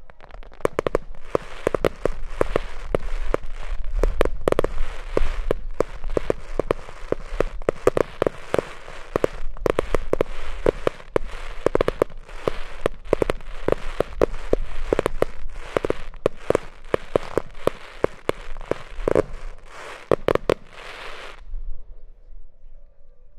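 Star mine fireworks barrage: a rapid, continuous run of shell bursts with many sharp bangs over crackling stars for about twenty seconds, stopping abruptly near the end.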